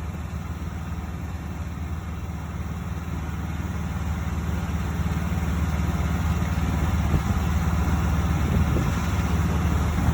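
A truck engine idling steadily with a low, even hum, growing gradually louder and loudest near the end.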